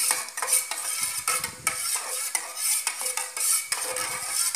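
A spoon stirring a thin lye and coconut oil soap mixture in a stainless steel bowl, scraping and clinking irregularly against the metal, with the bowl ringing faintly after some clinks.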